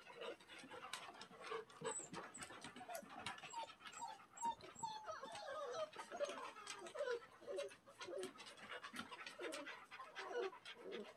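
Standard poodles play-fighting, panting and making short whimpering sounds, among scattered small clicks.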